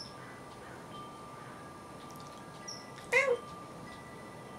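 Siamese cat giving a single short meow about three seconds in, its pitch rising and then falling.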